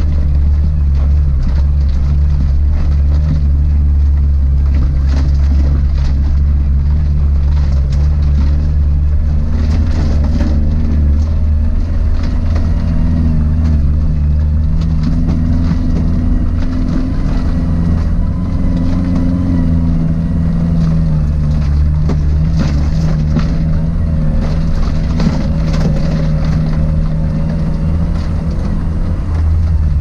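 Suzuki Jimny 4x4 driving off-road: a steady low engine and drivetrain drone whose pitch rises and falls a little, with frequent knocks and rattles from the rough track.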